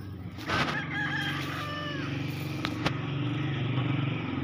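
A loud, drawn-out animal call lasting about four seconds. It starts suddenly with short high tones, carries on as a lower sustained tone and cuts off abruptly.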